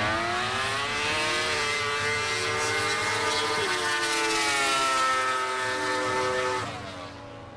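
Snowmobile engine at full throttle, accelerating hard off the drag-strip start line. The pitch rises at the launch, then holds high and nearly steady, and a motorcycle engine racing in the other lane is mixed in. The sound drops away sharply near the end.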